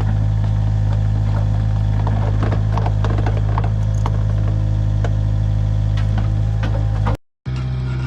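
An engine running steadily at an even speed, with a strong low hum and frequent small metallic rattles and clicks. It is cut off abruptly about seven seconds in, and a different engine sound takes over.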